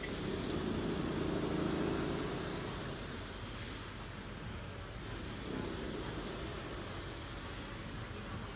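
City ambience: a low rumble of distant traffic that swells in the first two seconds, eases off, and builds again near the end, with a few faint high chirps over a steady background hiss.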